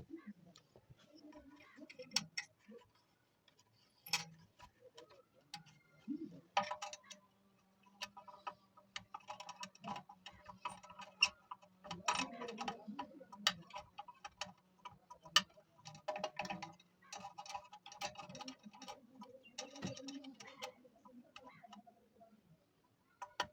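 Irregular light clicks and taps, as of small parts and tools being handled while working on an electric dry iron.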